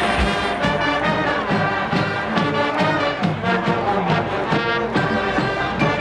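Brass band playing, with low brass prominent and a drum beat that stops just after the start.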